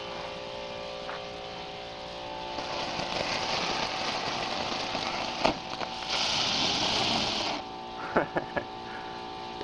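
Small ground firework hissing as it burns and spews smoke. The hiss builds and is loudest for its last second and a half, then cuts off suddenly about seven and a half seconds in.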